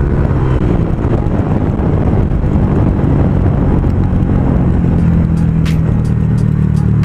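Honda Click V2 scooter's single-cylinder engine running through an aftermarket JVT V3 adjustable exhaust pipe. Its pitch drops in the first second as the throttle comes off, then holds low and steady.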